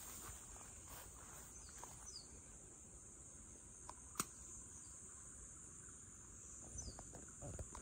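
Faint, steady high chirring of insects, with a single sharp click about four seconds in and a few soft knocks near the end.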